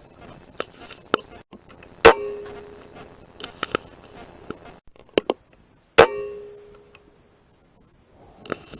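Two rifle shots about four seconds apart, each a sharp crack with a short ringing tail, with lighter mechanical clicks between them.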